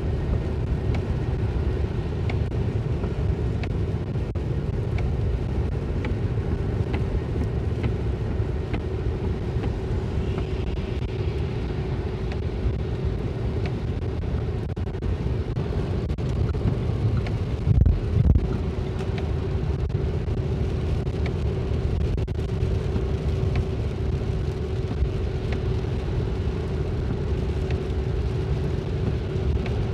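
Inside a moving car on a wet highway: steady low road and engine rumble with tyre noise on the wet surface, under a faint steady hum. Two short, loud low thumps come about two-thirds of the way through.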